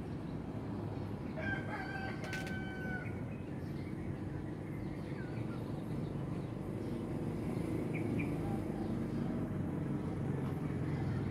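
A rooster crows once, a single held call about a second and a half in, over a steady low background rumble.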